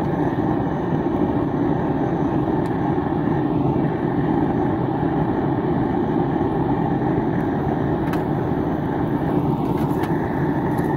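Electric blower forcing air through a duct into a charcoal-fired melting furnace: a steady, even rushing drone. A couple of faint clicks sound in the last few seconds.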